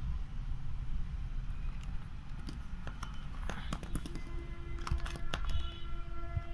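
Scattered clicks and light knocks of a creatine supplement tub and its scoop being handled as the scoop is dug out, over a low rumble. About four seconds in, a steady held sound of several tones joins in.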